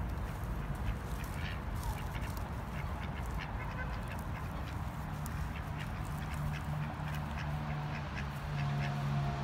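Mallard ducks quacking as they feed in grass, over a steady low background rumble.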